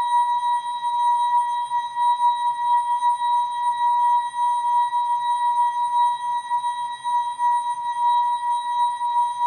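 ASKfm notification sound effect, slowed and time-stretched into one steady, unchanging high tone with fainter overtones above it, wavering slightly in loudness.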